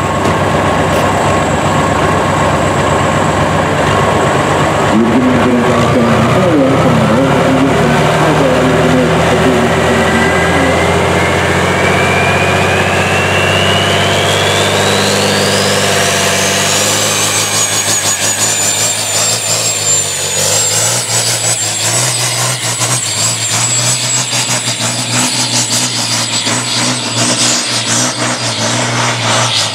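Turbocharged diesel engine of a truck-class pulling truck running hard, its turbocharger whine climbing steadily in pitch over about a dozen seconds and then held high as the truck pulls the sled.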